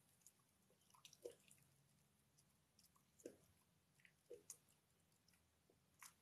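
Wire fox terrier eating from a metal bowl: faint, irregular chewing and wet mouth smacks, with a few sharper clicks scattered through.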